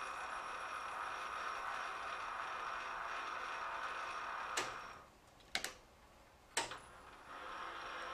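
Metal lathe running with a steady whine while power-tapping a 5/16-18 thread with a two-flute tap in the tailstock drill chuck. About four and a half seconds in there is a sharp click and the lathe goes quiet. A few more sharp clicks follow, and the lathe runs again about a second before the end.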